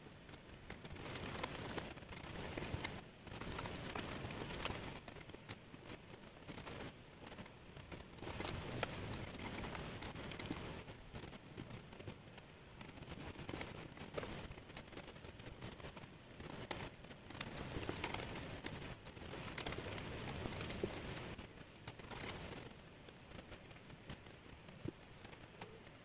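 Thin laser-cut plywood jigsaw pieces clattering and rustling on a table as hands sift and push through them: a dense patter of tiny clicks that swells and eases every second or two.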